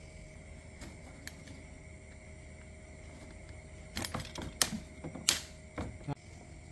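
A quick run of about ten sharp clicks and taps starting about four seconds in, two of them much louder, over a faint steady hum.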